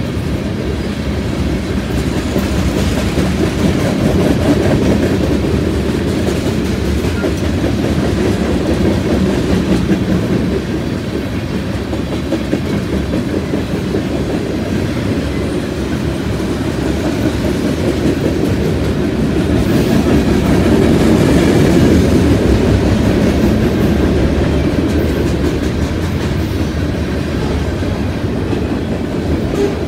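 Freight train cars rolling steadily past, first tank cars and then flatcars loaded with lumber: a continuous rumble of steel wheels on the rails that swells a little now and then.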